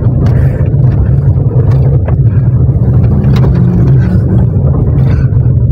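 Small car driving along a rough unpaved street, heard from inside the cabin: a steady low engine and road rumble, with a few faint clicks about two and three and a half seconds in.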